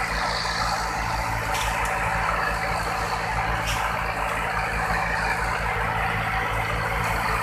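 Fishing boat's engine running steadily under way, with a regular low beat, over the rush of water along the hull.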